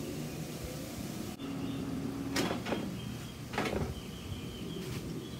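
Air fryer basket drawer being worked in its housing, the drawer that presses the fryer's replacement safety microswitch: two sharp clunks about a second apart, over a steady low hum.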